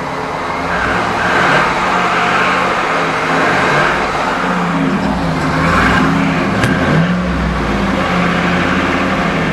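2010 Cadillac Escalade's 6.2-litre V8 running, with engine speed rising and falling a little in the second half; the owner takes its knock for severe piston slap, one of the worst he has heard.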